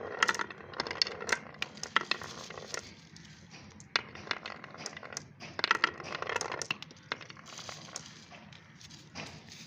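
Marbles rolling and clattering down a marble run track, a stream of quick sharp clicks over a light rolling hiss. The clicks come thickest at the start and again about halfway through.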